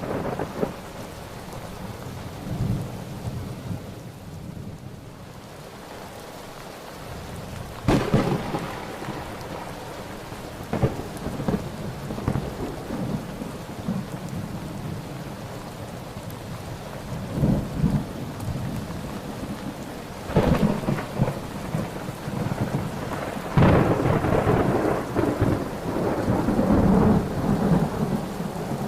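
Thunderstorm: steady rain falling, with several sudden claps of thunder rumbling through it, the loudest peal rolling on for several seconds near the end.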